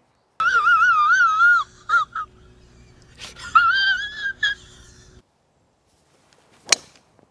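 A high-pitched, wavering wail of a person crying, in two long cries. Near the end, a single sharp crack of a driver striking a golf ball off the tee.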